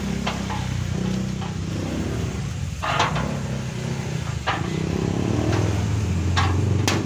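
A small motorcycle engine idles steadily. Over it come several short, sharp clicks and knocks as a steel gate is handled, the loudest about three seconds in and just before the end.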